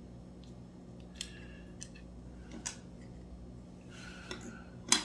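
Scattered small clicks and taps of hands handling parts and a glue bottle on a workbench, with one sharper click just before the end, over a faint steady hum.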